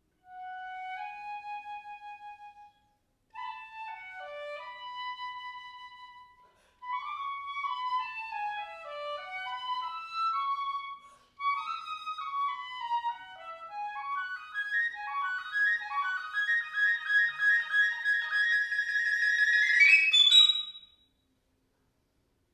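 Solo piccolo playing an unaccompanied melody in four phrases with short breaks for breath between them. Each phrase climbs higher and louder, ending in a loud passage of rapid repeated high notes that cuts off abruptly.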